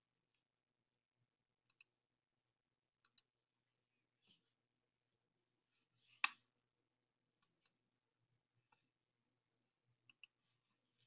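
Computer mouse clicks, each a quick pair of clicks from the button being pressed and released, heard four times a few seconds apart. About six seconds in comes one louder single knock. Otherwise near silence.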